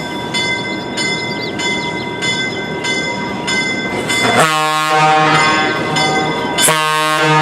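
Locomotive bell ringing steadily, about two strokes a second. About four seconds in, the train horn sounds a long blast, and a second blast follows near the end.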